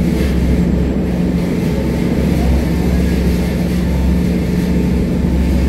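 A passenger ferry's engines running under way: a steady low drone with a constant hum, heard from inside the enclosed passenger cabin.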